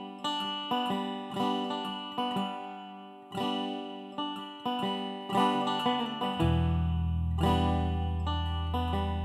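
Background music of plucked string notes, each struck sharply and fading, with a low held bass note coming in about six seconds in.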